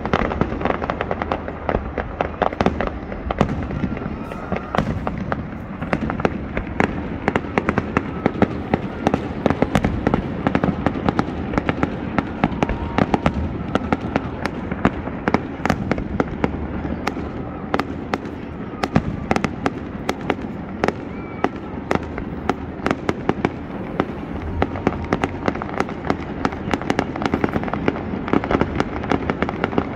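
Fireworks going off in quick succession: a dense, continuous string of sharp bangs and crackles from bursting shells over a steady rumble.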